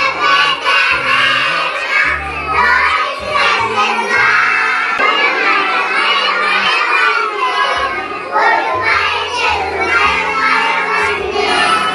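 A group of young children shouting and chattering together over background music with a stepping bass line.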